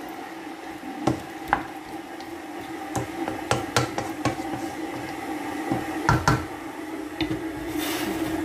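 Wooden spatula stirring chicken, potato and carrot pieces in a pan of hot water, knocking and scraping against the pan at irregular intervals over a steady low hum.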